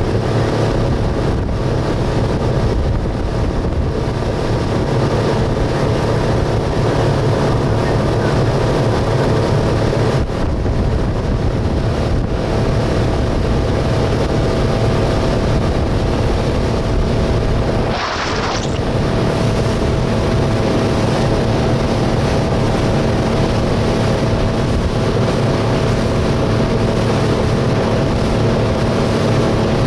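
Mercury outboard motor running steadily as the speedboat moves at speed, mixed with the rush of the hull and wake through the water and wind on the microphone. A short hiss, like a burst of spray, comes about two-thirds of the way through.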